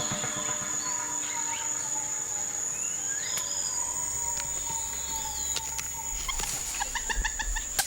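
Tropical rainforest ambience: a steady high-pitched insect drone with bird calls over it, including a long slowly falling whistle. Near the end there is a quick run of repeated short notes.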